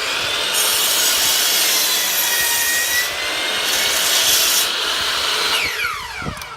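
Electric power saw cutting through a wooden board, steady for about five and a half seconds, then the motor winding down with a falling whine near the end.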